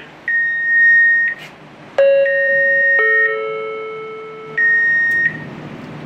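Public address voice-alarm system through a ceiling loudspeaker: a high electronic beep, about a second long, repeating every couple of seconds. About two seconds in comes a descending two-note chime, one note a second after the other, each ringing and fading slowly.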